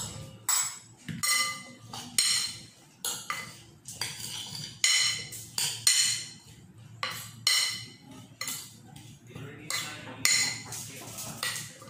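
Metal spoon clinking and scraping against a ceramic bowl while potato pieces are tossed with oil and seasoning: irregular strikes, many with a short ring.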